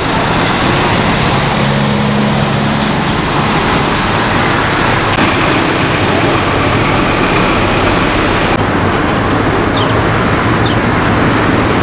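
Steady street traffic noise with city bus engines running.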